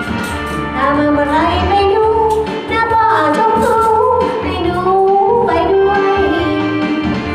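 A woman singing into a handheld microphone over a backing track, her melody moving between long held notes.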